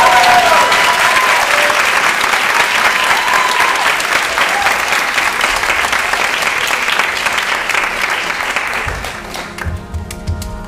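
Theatre audience applauding loudly, with a few high cheers at the start. Near the end the applause dies down as music comes in.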